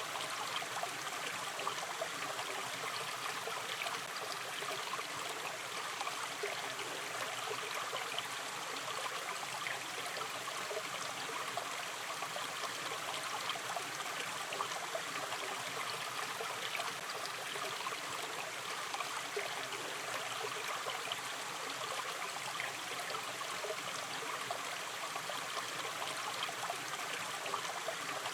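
Shallow river stream running steadily over stones, a continuous babble with fine trickling and gurgling detail.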